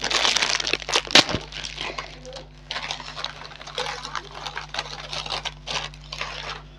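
Plastic snack packet crinkling as it is torn open, with a sharp tear a bit more than a second in, then rustling as the snacks are shaken out onto a plate.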